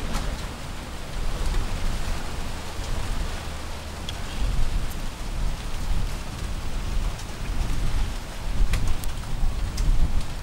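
Wind rumbling on the microphone: a steady, gusting low rumble with a hiss over it, and a few faint clicks near the end.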